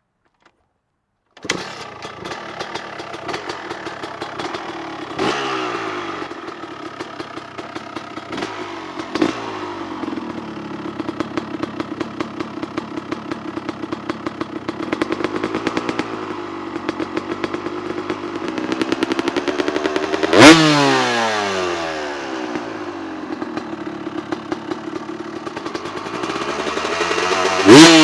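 2003 Honda CR250R two-stroke single-cylinder engine with an FMF Fatty expansion pipe and Titanium2 silencer, starting up suddenly about a second and a half in and idling. It is blipped twice lightly, then revved hard twice near the end, each rev falling back in pitch to idle.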